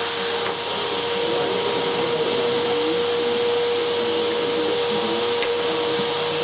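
Miele vacuum cleaner running steadily on a suction test with a freshly emptied, reused dust bag fitted: a steady motor whine over the rush of air.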